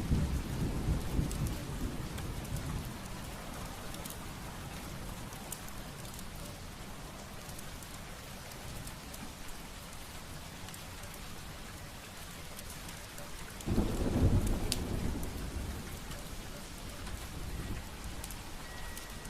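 Wood fire crackling in a fireplace, with scattered sharp pops over a steady hiss. A low rumble swells at the start and again about 14 seconds in.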